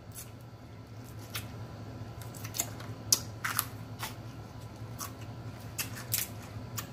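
Snow crab leg shells being cracked and snapped apart by hand while eating: a scatter of sharp, irregular clicks.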